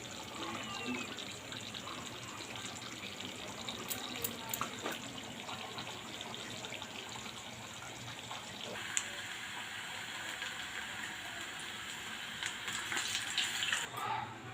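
Water running steadily, as from a kitchen tap into a sink; the sound brightens about nine seconds in.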